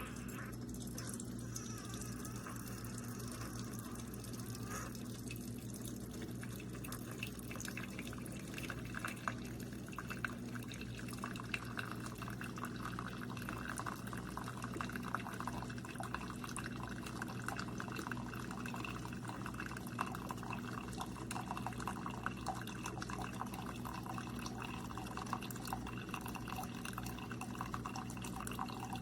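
Keurig K-Supreme single-serve coffee maker brewing: a steady machine hum, with coffee streaming and dripping into the cup. The trickling grows busier about six seconds in.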